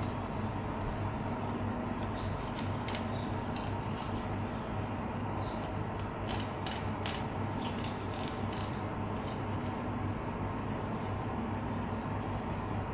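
A knife cutting and scraping through saury flesh on a wooden cutting board: short crisp ticks that come in two clusters, over a steady low hum.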